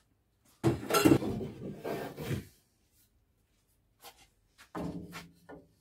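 Rummaging through workshop clutter for a piece to use as a spacer: about two seconds of clattering and rubbing of wood and metal pieces, then a few lighter knocks near the end.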